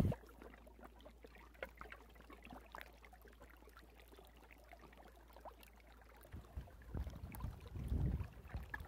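Near silence for about six seconds, then gusty wind buffeting the microphone at the riverbank.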